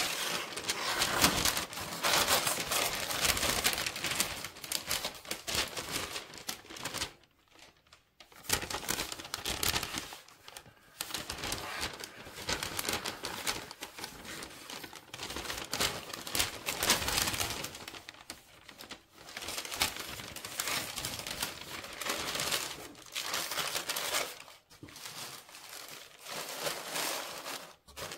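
Packing paper in a sneaker box crinkling and rustling as it is handled and pulled away from the shoes, in bursts with a few short pauses.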